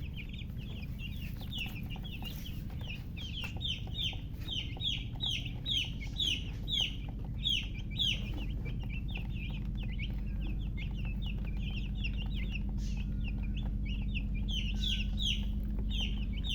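Newly hatched chicken chicks peeping loudly: a rapid, continuous stream of high, downward-sliding chirps, several a second, over a steady low hum.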